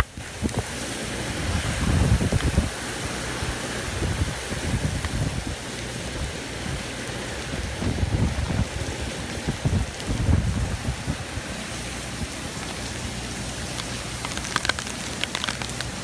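Torrential hurricane rain pouring down steadily in the eyewall, with gusts of wind buffeting the microphone every few seconds. A run of sharp clicks comes near the end.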